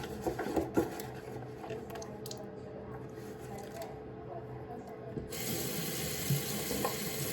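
Light handling clicks and rubbing, then about five seconds in a bathroom tap runs with a steady hiss of water for about two seconds.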